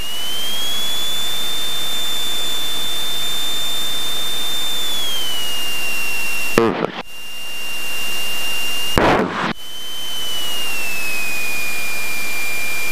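Cessna 172 cockpit noise with the engine running: a steady rushing sound under a high whine. The whine rises in pitch at the start, then steps down about five seconds in and again about ten seconds in. Two short breaks cut through it, around seven and nine seconds in.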